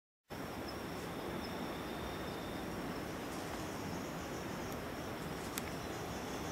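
Forest insects trilling steadily at a high pitch over a constant hiss, with a second, lower trill that stops after about two and a half seconds. A few faint clicks come near the middle.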